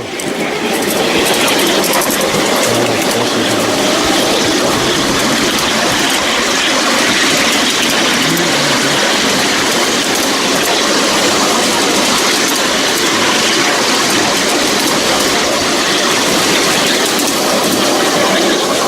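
Miniature railway train running along its track, a steady loud rolling noise of wheels on rails heard from on board, building up in the first second.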